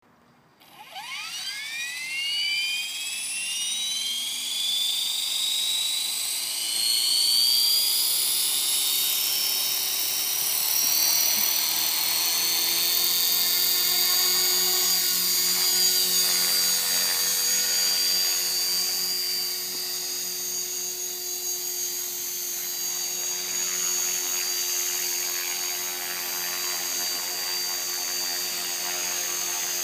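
Align T-Rex 450 PRO electric RC helicopter spooling up: its motor whine rises in pitch over the first few seconds, then holds as a steady high whine with rotor noise as the helicopter runs at speed.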